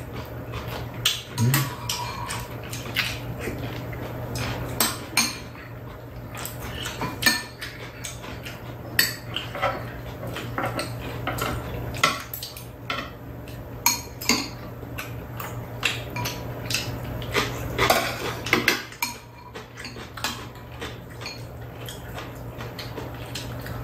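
Metal spoons and chopsticks clinking and scraping against bowls and a pan while people eat, as many irregular sharp clicks, over a low steady hum.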